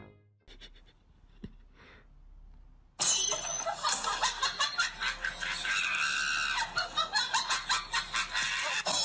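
Quiet with a few faint clicks, then about three seconds in a sudden burst of breathy, stifled laughter from a person. It comes in quick pulses, about four a second, and carries on.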